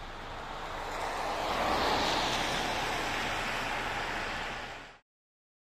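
Steady hiss of heavy rain falling, swelling to its loudest about two seconds in, then cut off abruptly about five seconds in.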